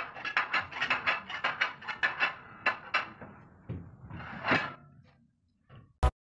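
Dinner plates set down one after another on a glass lazy Susan: a rapid run of sharp clicks and clinks, about five a second, thinning out after about three seconds. A single short loud thump comes near the end.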